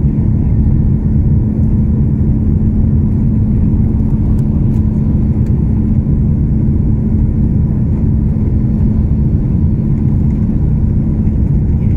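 Twin-engine jet airliner rolling on the ground, heard from inside the cabin: a steady low rumble of engines and wheels with a constant hum underneath.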